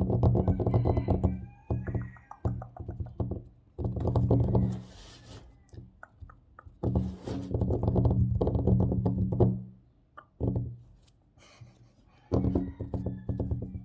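Fast, hard fingertip tapping on a tabletop in bursts of one to three seconds, the table ringing low under the taps, with short scratching strokes on its surface in between.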